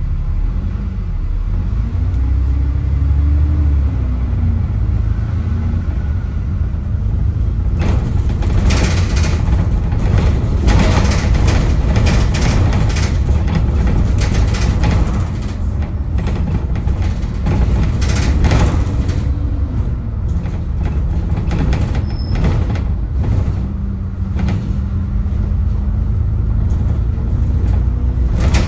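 A double-decker bus under way, heard from the upper deck: a steady low engine and road rumble with the engine note rising and falling. Through the middle stretch the rumble is joined by loud rattling and road noise.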